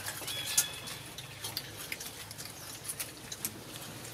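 Macaques eating chunks of food held in their hands, giving irregular wet mouth-smacking and chewing clicks, with a brief high squeak about half a second in.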